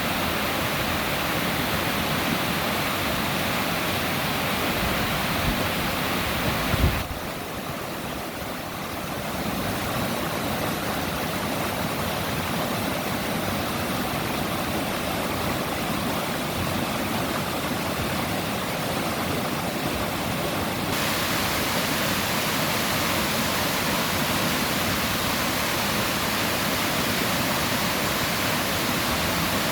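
Mountain stream in spate after heavy rain: fast, full water rushing over rocks in a steady, loud rush. A brief thump about seven seconds in, where the sound briefly dips and its hiss softens for a while.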